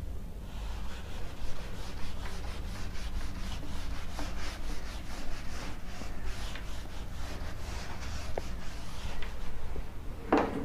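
Whiteboard eraser wiped back and forth across the board, a steady run of rubbing strokes, about three a second.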